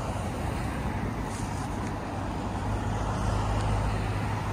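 Road traffic on a city street: a steady rush of car tyres and engines going by.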